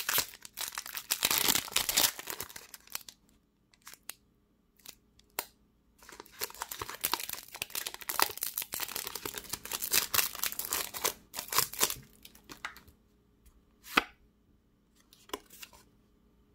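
A foil Pokémon booster pack wrapper being torn open and crinkled by hand, in bursts of tearing and crackling for the first few seconds and again from about six to twelve seconds in. A few short light clicks near the end.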